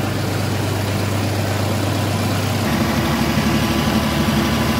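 New Holland compact tractor's diesel engine running steadily. About two-thirds of the way through, the sound cuts abruptly to a different, busier engine note.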